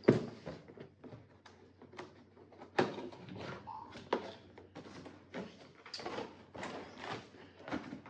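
Cardboard box being opened by hand: its top flaps pulled up and folded back, with a run of scrapes, rustles and sharp knocks, the loudest right at the start.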